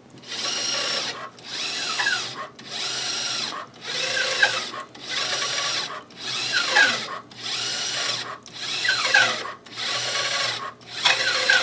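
Motor drive of an RCA-10H automated ultrasonic pipe scanner running a raster scan. It whirs in even passes about a second long, with short stops between them, roughly one every 1.2 seconds, as it runs down the pipe's length, steps over and comes back.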